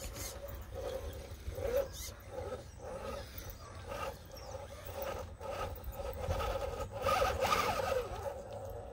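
RC rock crawler's brushed 540 motor and gear drivetrain whining in uneven throttle pulses as it climbs rock, with scattered clicks of the tyres and chassis against the rock. The whine grows louder and wavers in pitch about seven seconds in.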